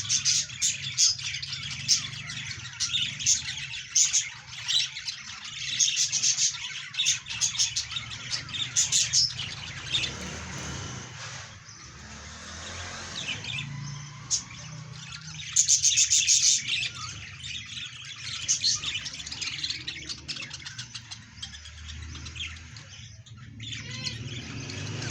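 Parrots chirping and squawking in quick runs of short, high-pitched calls, densest over the first ten seconds and again about two thirds of the way through, over a low steady hum.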